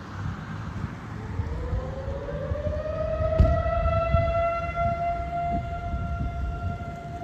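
Outdoor warning siren winding up: about a second in its tone starts rising and levels off after roughly three seconds into a steady wail with overtones. Wind rumbles on the microphone underneath, with a short thump about three and a half seconds in.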